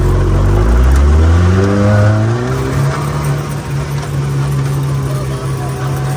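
Off-road vehicle engine revving hard under acceleration, its pitch climbing over the first few seconds, then holding steady at high revs at speed, over a dense rushing noise of the ride.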